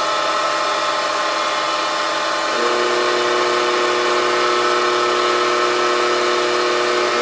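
Bridgeport step-pulley vertical mill head running under power with the quill power feed engaged: a steady mechanical whine from the 1 hp three-phase motor, belts and spindle. About two and a half seconds in, a lower steady hum joins and holds.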